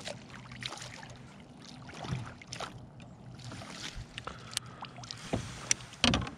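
A fishing kayak being handled on the water: scattered light knocks and clicks over a wash of water noise, with one louder burst just before the end.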